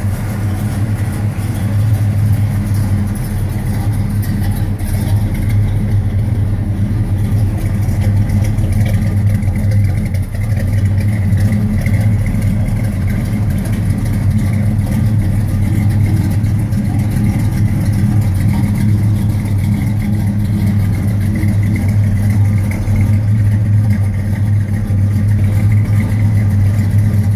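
1964 Chevelle SS's 283 cubic-inch small-block Chevrolet V8, fitted with the 350-horsepower Corvette camshaft (GM 3863151), idling steadily. The engine is freshly rebuilt, its cam just broken in and tuned.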